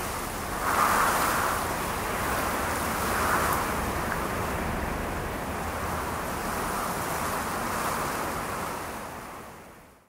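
Steady rushing noise that swells and eases every few seconds, fading out near the end.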